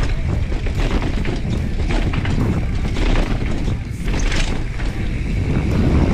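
Bicycle clattering and knocking down stone steps, many quick jolts and rattles, over a steady low wind rumble on the microphone.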